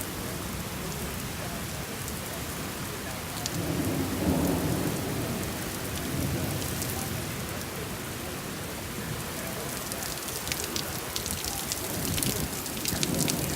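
Steady rain falling, with a low rumble of thunder swelling about four seconds in and again near the end.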